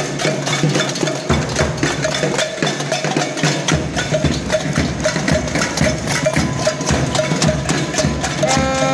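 A crowd's improvised percussion: drums and handheld objects beaten in a dense, irregular clatter of strikes, with a repeated knocking beat. Near the end a held pitched note sounds over it.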